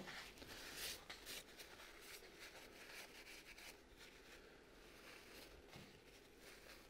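Near silence, with faint, scattered rustles of a paper towel wiping spilled brake fluid off the motorcycle.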